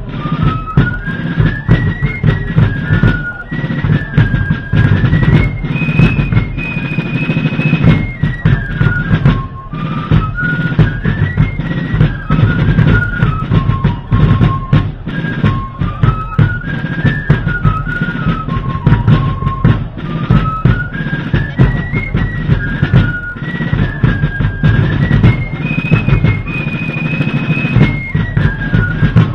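Fife and drum corps playing a march: fifes carrying one high melody in unison over steadily beating snare and bass drums. The same phrase of the tune comes round twice.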